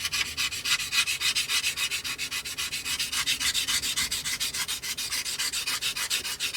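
Sanding sponge rubbed rapidly back and forth over the plastic leading-edge seam of a model aircraft kit's wing, in quick even strokes about eight a second, sanding the seam away.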